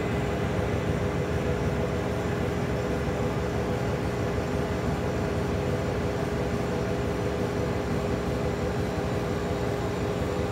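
CO2 laser engraver running while it marks an anodized aluminium dog tag: a steady machine hum with several constant tones.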